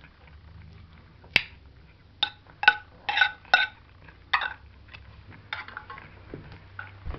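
A plate clinking and knocking on the floor as a cat eats from it: a sharp click about a second in, then a quick run of about six short ringing clinks, and a few softer ones near the end.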